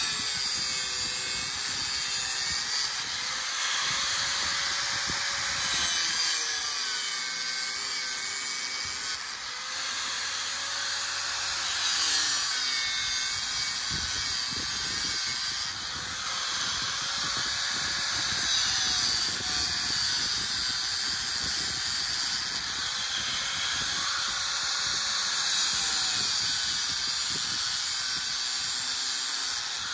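Corded angle grinder with a cutting disc cutting through the steel wires of a hog panel. Its motor whine dips in pitch and recovers every few seconds as it bites into one wire after another, over a steady grinding hiss.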